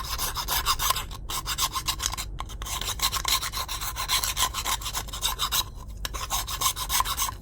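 Round file rasping around the inside of a 3D-printed plastic body, filing down a freshly glued repair section: quick, repeated strokes with a few brief pauses.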